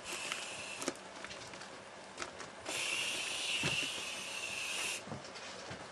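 Aerosol whipped-cream can spraying: a short hiss at the start, then a longer, louder hiss of about two seconds from a little before the middle.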